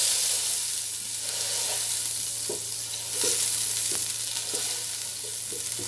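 Butter melting and sizzling in an aluminium pot over a low gas flame, with a wooden spoon stirring and scraping against the pot every half second or so in the second half.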